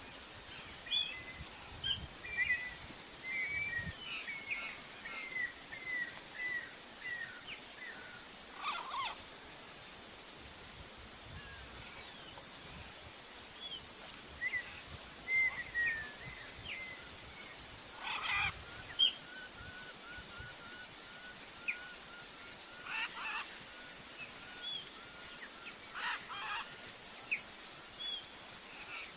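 Rural ambience: a steady high-pitched insect trill under scattered bird chirps and calls, a handful of them louder.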